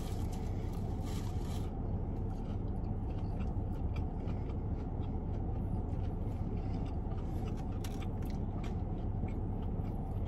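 Eating sounds in a car cabin: chewing on fried chicken, with small scattered clicks and scrapes of a plastic fork in a foam takeout box, over a steady low rumble from the car.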